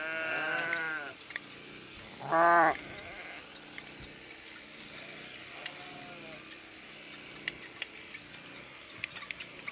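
Sheep bleating: a wavering call in the first second, a shorter, louder one about two and a half seconds in, and a faint one around six seconds. Hand blade shears snip through the fleece with sharp clicks now and then.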